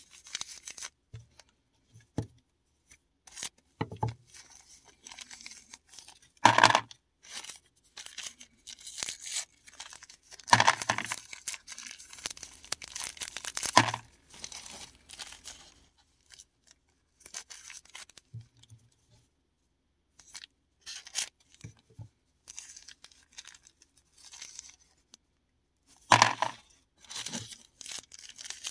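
Paradichlorobenzene mothballs being handled and crushed by hand, giving irregular crunching and crackling with a few sharp loud cracks and short pauses between.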